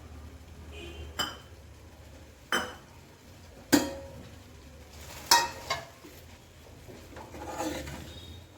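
A spoon stirring besan sheera in a kadhai as it cooks. It knocks against the pan five times, each a sharp clink a second or so apart, then scrapes more softly near the end.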